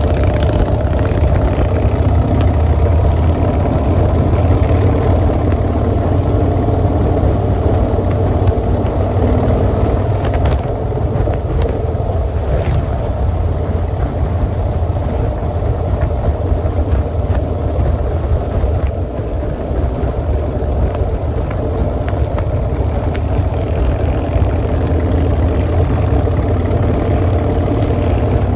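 Motorcycle running steadily at highway cruising speed, heard from the bike itself: a constant low engine rumble under wind and road noise.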